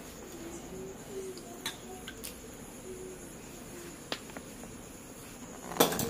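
Crickets chirping steadily, with a few light taps, then a sharp metallic clatter of dishes near the end.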